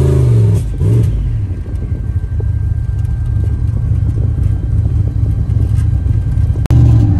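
Turbocharged Chevrolet pickup's engine heard from inside the cab as the truck accelerates. A steady drone breaks up about half a second in into a rough, uneven rush of engine and exhaust noise, and a steady drone returns abruptly near the end.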